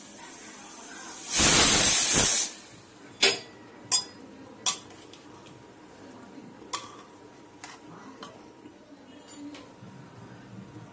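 Pressure cooker releasing steam through its whistle weight in one loud hiss of about a second, the dal inside cooking under pressure. A few sharp metal clinks follow, then fainter ones, from a spoon against the aluminium cooker.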